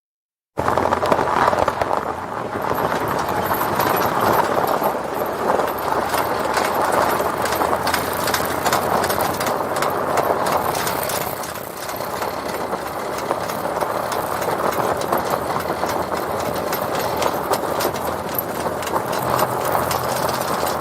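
A vehicle rolling through snow on tyre chains: the chains rattle and clink continuously over the crunch of snow, with the engine running underneath. The sound starts abruptly about half a second in, after a moment of silence.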